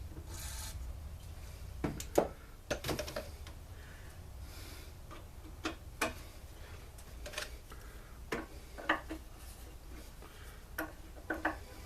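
Hand tools clinking, knocking and scraping against metal at uneven intervals while stuck bolts on a backpack blower's engine are worked loose.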